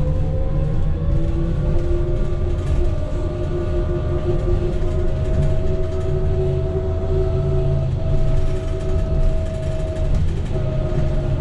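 Cabin sound of a 2006 New Flyer E40LFR electric trolleybus under way. Its traction motor whines, rising in pitch over the first couple of seconds as the bus gathers speed, then holding steady at cruising speed. A low rumble of road noise runs underneath.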